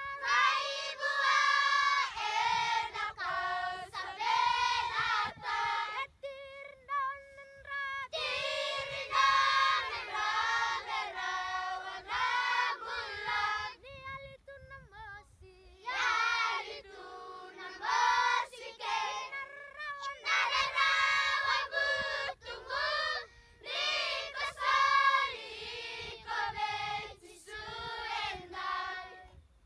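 A group of schoolchildren singing together in chorus, phrase by phrase, with two short breaks in the song.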